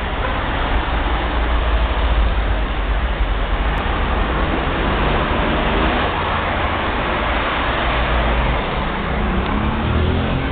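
Iveco Daily van's diesel engine running: a steady, loud rush of noise over a low rumble, with a pitched engine note coming through more clearly near the end.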